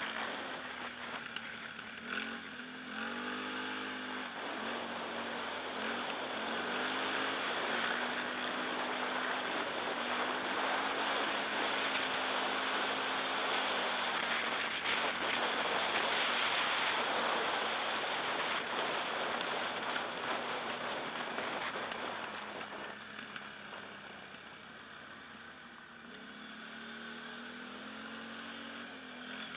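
Quad bike (ATV) engine revving up and down as it is ridden along a dirt track, under a loud rushing of wind and tyre noise. It eases off and gets quieter near the end.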